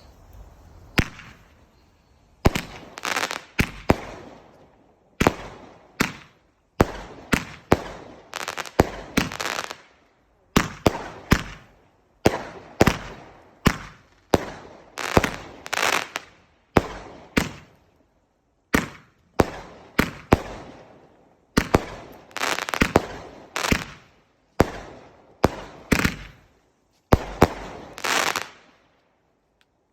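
Fireworks exploding in a long run of sharp bangs, each trailing off in a fading crackle, with short pauses between clusters.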